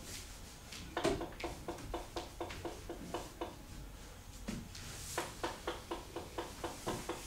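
Hands patting and dabbing wet green paint-soaked material against paper on a wall: quick, even taps at about five a second, in two runs with a pause between.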